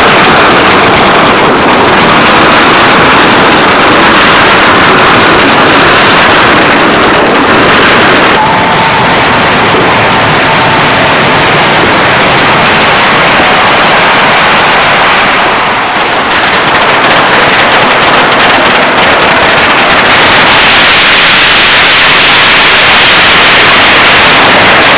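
A long string of firecrackers going off in a continuous, very loud rapid crackle, dulling for a while in the middle and then sharper again.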